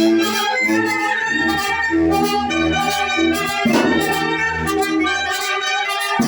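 A Mexican brass band (banda) playing: clarinets and brass carry held melody notes over a low bass line that comes in about a second in, with a single percussion hit a little past halfway.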